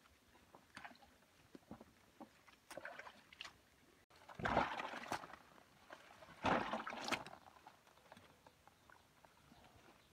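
Water splashing and sloshing over wet feet and banana leaves during a bath, in two louder bursts about two seconds apart, the first about four seconds in. Small wet clicks and drips come before them.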